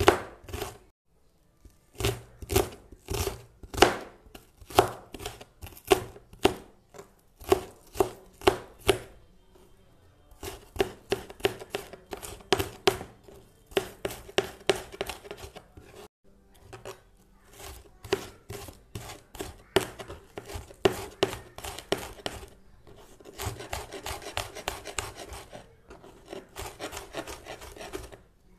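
A knife chopping red onion on a cutting board: sharp chops about two a second at first, then faster runs of quick chops broken by short pauses, with a rapid run of fine mincing near the end.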